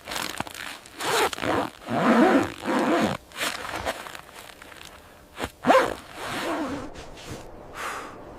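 A zipper, likely a tent or sleeping-bag zip, being pulled in a series of short strokes, with one sharp, quick pull just past the middle.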